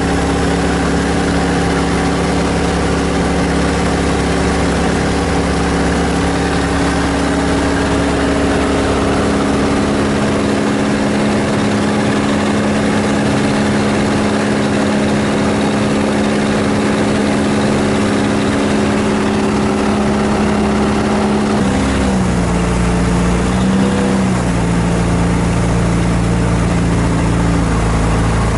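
A tour boat's motor running steadily under way, heard from on board. About three-quarters of the way through it drops to a lower pitch, picks up briefly, then settles at the lower speed.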